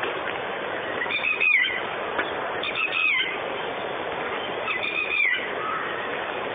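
An unidentified bird calling repeatedly: a short whistled note that bends up and then down, three times, about every one and a half to two seconds, over a steady hiss.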